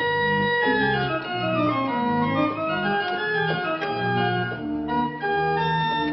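The freshly restored late-18th-century Johannes Prause baroque pipe organ playing a many-voiced piece: a quick-moving upper line over a bass line in separate, steadily changing notes.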